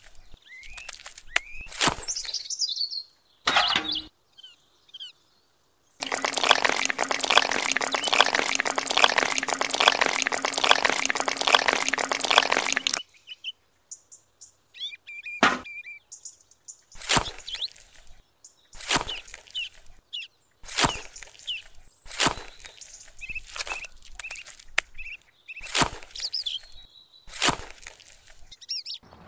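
Small metal shovel scooping and scraping wet cement mix, a string of short scrapes and wet slaps about every two seconds, with bird chirping throughout. A few seconds in, about seven seconds of loud, dense noise with a steady low hum stands over everything and then cuts off.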